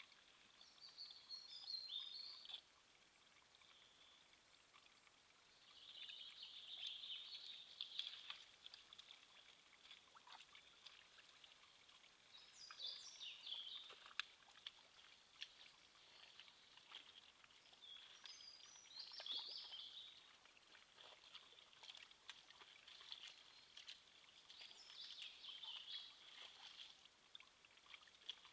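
Faint woodland birdsong: short, high, chirping song phrases come about every five or six seconds, five in all, with scattered faint clicks in between.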